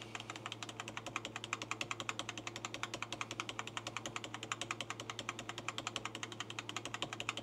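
Computer keyboard's Delete key tapped rapidly and evenly, roughly nine clicks a second without pause: a PC being rebooted with Delete held at a fast tap to enter the BIOS setup before the operating system loads.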